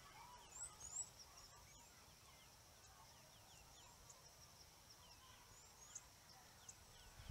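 Faint outdoor field ambience: small birds chirping in short, scattered calls over a steady high-pitched drone.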